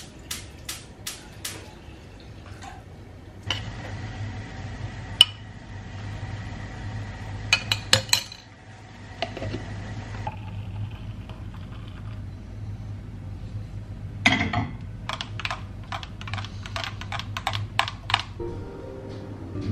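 Coffee being made in a glass French press: spoon and pot clinks, and a steady hiss for several seconds in the middle. Near the end comes a quick run of clinks, about three a second, as a spoon stirs the coffee against the glass.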